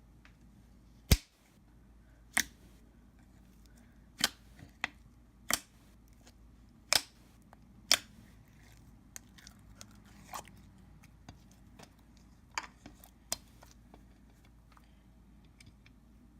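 Slime being pressed and squished by hand, making sharp clicks and pops at irregular intervals, about a dozen in all; the loudest comes about a second in.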